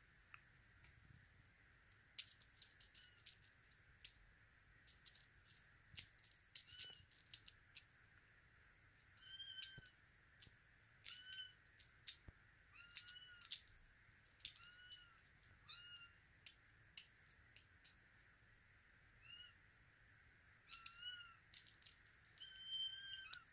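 A Russian Blue kitten giving a string of short, high mews, each rising and falling in pitch, a second or two apart, amid scattered sharp clicks that are the loudest sounds.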